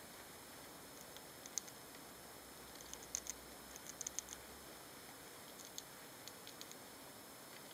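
Faint scattered small sharp clicks and scratches from Roborovski dwarf hamsters moving about their cage, with a quick cluster about three seconds in and another about four seconds in, over a steady hiss.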